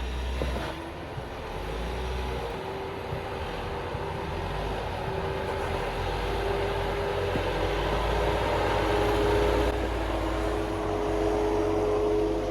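Jeep Wrangler engine running under load at crawling speed on a rock trail: a steady low rumble with a whine that slowly rises in pitch.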